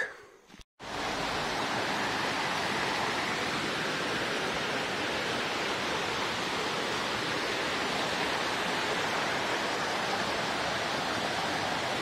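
Steady, even rush of a waterfall's falling water, starting about a second in.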